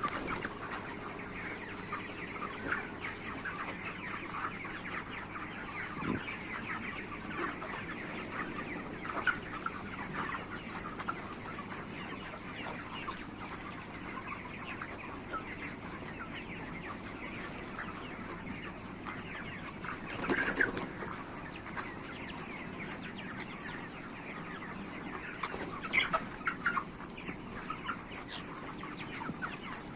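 A large flock of 35-day-old farm chickens clucking and calling in a continuous overlapping chatter, with louder bursts about two-thirds of the way through and again near the end.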